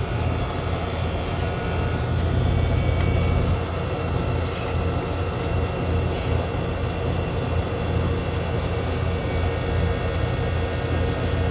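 Steady low electric hum and drone of a running refrigeration unit, its compressor and fan motor running without a break, with a couple of faint ticks around the middle.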